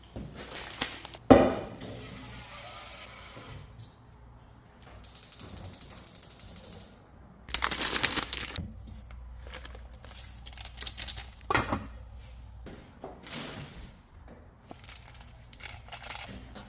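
Kitchen cooking sounds while instant ramen is made: water running, and pots and utensils knocking, with one sharp knock about a second in.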